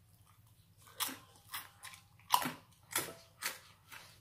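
A person chewing a mouthful of pork crackling: after about a second of quiet, a run of sharp crunches, roughly two a second.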